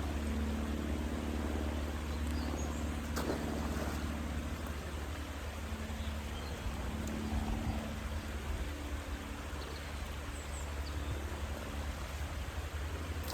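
A steady low engine drone, with one faint knock about three seconds in.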